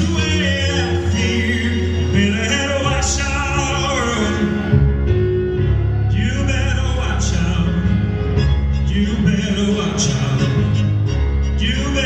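Live band playing a pop song in a strings arrangement, a male lead voice singing a wavering melody over string accompaniment and steady bass notes.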